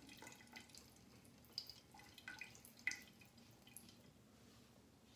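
Faint water dripping just after a faucet has been shut off: a few soft, sharp drops spread over the first three seconds, then near silence.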